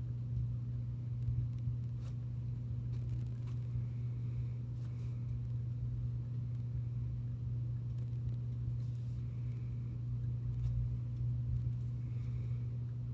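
A steady low hum, like a motor or appliance running, with a few faint light ticks over it.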